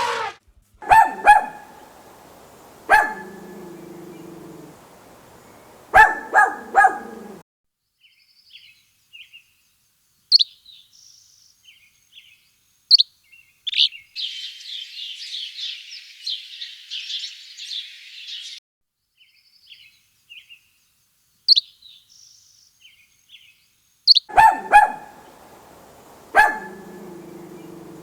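A dog barking in short, sharp barks, then a small songbird chirping with a rapid trill, then the dog barking again.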